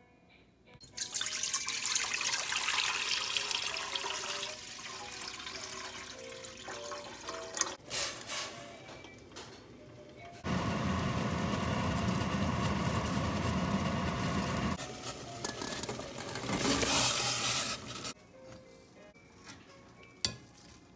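Kitchen water running and pouring in several stretches, the fullest and steadiest about ten to fifteen seconds in. Each stretch cuts off abruptly. Soft background music with a simple melody plays underneath.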